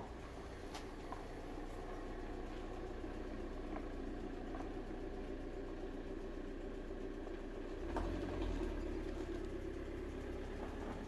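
Steady low hum of a running motor vehicle engine, with its rumble growing louder about eight seconds in.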